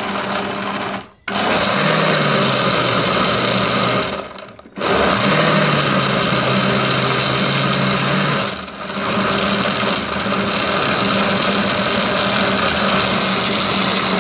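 Countertop electric blender running at full speed, chopping sweet corn kernels and peanuts in liquid into a smooth purée. The motor cuts out briefly twice near the start, about a second in and about four seconds in, then runs steadily with one short dip near the middle.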